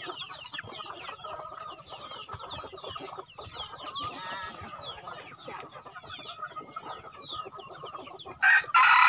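A flock of free-range chickens clucking, with many short high chirps. Near the end a rooster crows loudly.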